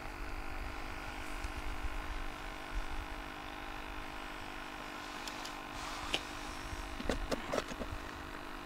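A steady hum made of several held tones over a low rumble, with a few light clicks and taps in the second half.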